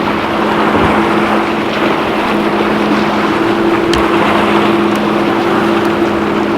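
Boat motor running at a steady pitch, with wind and water noise.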